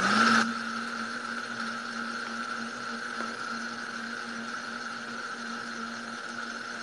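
Countertop blender running on a batch of limes, sugar, condensed milk, water and ice. A loud churning ends about half a second in, and the motor then runs on with a quieter, steady hum.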